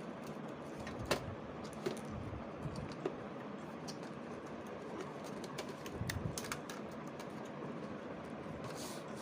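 Scattered light plastic clicks and taps from hands working on a laptop's keys and case, a few at a time and irregular, over a steady background hiss.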